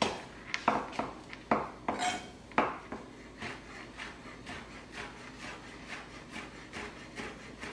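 Chef's knife chopping cilantro on a cutting board: a few sharp knocks of the blade on the board in the first three seconds, then lighter, quicker taps at about three to four a second.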